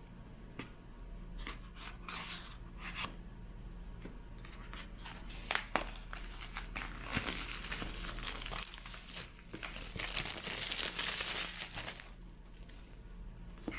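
Packaging being opened by hand: crinkling and tearing of wrapping around the Apple USB SuperDrive box, with scattered clicks and taps and longer stretches of rustling past the middle.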